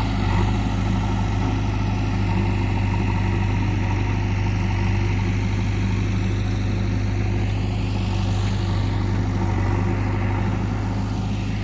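Heavy diesel machine engine running steadily at a constant speed.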